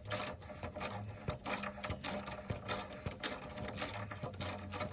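Hand ratchet with a hex bit clicking rapidly and repeatedly as it backs out a motorcycle's front brake caliper mounting bolt.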